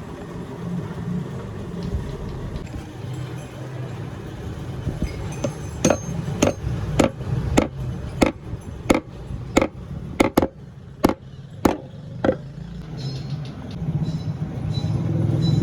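About a dozen sharp hammer taps on metal, evenly paced at roughly one and a half a second, each with a short ring, over a steady low background rumble.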